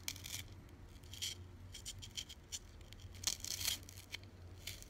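Small pins pushed by hand into a foam block, making faint, crisp crackles and scratchy clicks at irregular intervals.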